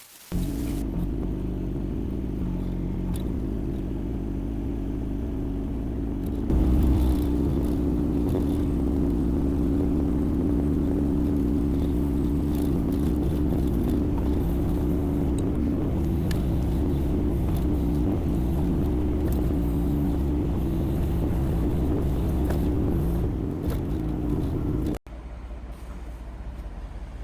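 Yanmar diesel engine of a Kymron XH20D mini excavator running steadily. It steps up louder about six seconds in. Near the end it drops suddenly to a quieter, duller run.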